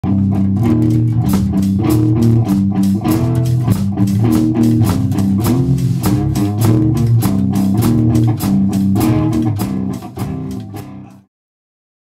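Rock band playing electric guitar, bass guitar and drum kit, with steady drum hits. The music fades out from about ten seconds in and stops about a second later.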